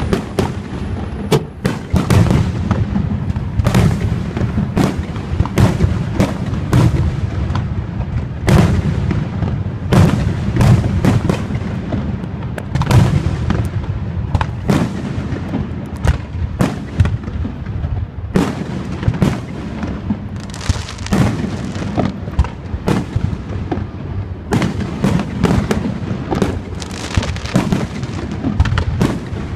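Fireworks display: aerial shells bursting in quick, overlapping succession, a continuous barrage of booms and crackles with no pause.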